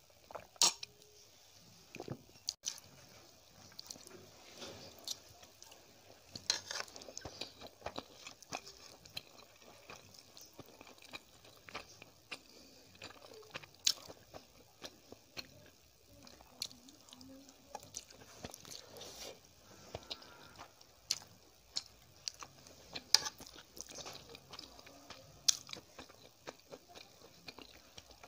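Close-miked eating: a person chewing mouthfuls of Maggi instant noodles, with wet mouth noises and sharp clicks at irregular intervals.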